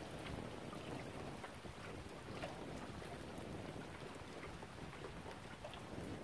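Lake water lapping at the shore with wind, a steady wash of noise dotted with many small ticks and splashes.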